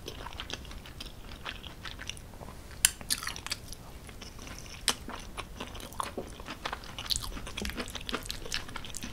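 Close-miked chewing of creamy cheese-stuffed tortellini with peas and vegetables: soft, wet mouth sounds and smacks in a steady run, with a few sharp clicks.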